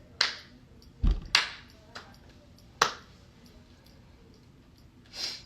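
Hand claps and foot stomps from cheerleading practice: about five sharp, irregular strokes in the first three seconds, a couple of them with a deep thump, then a brief soft rustle near the end.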